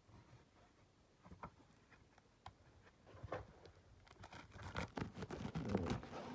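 Shrink wrap and a cardboard box being handled while the box is unwrapped and opened: scattered small clicks and scrapes, building to a denser, louder rustle about four seconds in.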